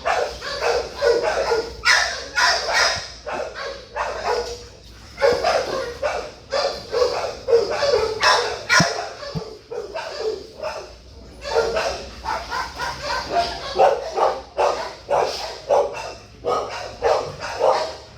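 Dogs barking over and over, with short sharp barks and yips coming one to three a second without a break.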